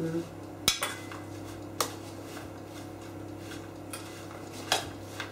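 Metal kitchen utensils clinking against a metal bowl and a knife tapping on a cutting board as apples are cut up. There are a few sharp, irregular clinks, the loudest about a second in and near the end, over a steady low hum.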